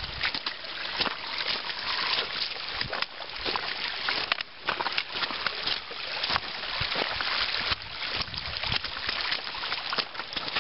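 Shallow water running and splashing over the rocks of a trail turned into a stream, with irregular sharp splashes and knocks from footsteps through the water.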